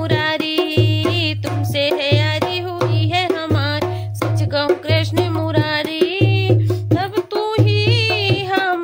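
Hindi devotional bhajan to Krishna: a woman singing a wavering melody over tabla and a recurring drum beat.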